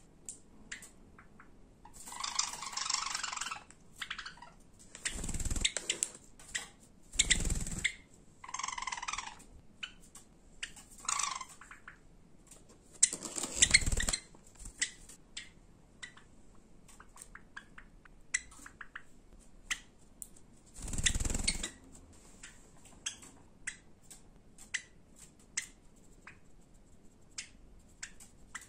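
Java sparrows calling and singing: runs of sharp clicking notes with several bursts of high chirping. A few louder, fuller sounds cut in, the loudest about 13 seconds in.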